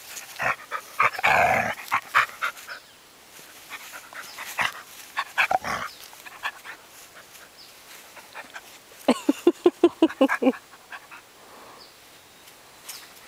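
Two dogs play-wrestling, panting and making short vocal sounds, with a rapid string of short pitched sounds, about six a second, around nine seconds in.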